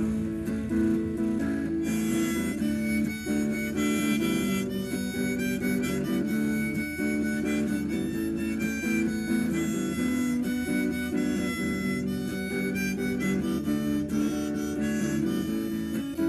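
A busker's acoustic guitar and harmonica playing together, the guitar accompanying and the harmonica carrying the melody in held notes from about two seconds in.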